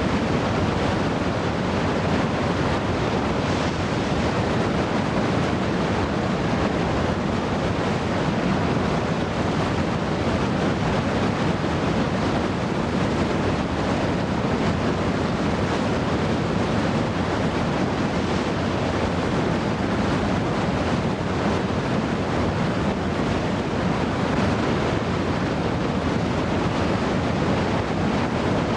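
Heavy whitewater rapids rushing, a steady, unbroken noise that does not rise or fall.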